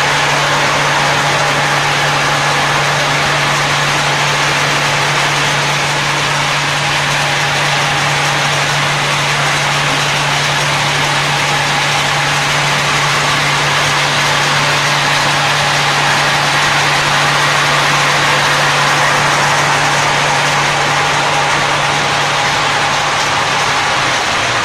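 Coffee cherry processing machinery, a motor-driven bucket elevator and conveyors, running steadily: a constant low hum under an even mechanical whir.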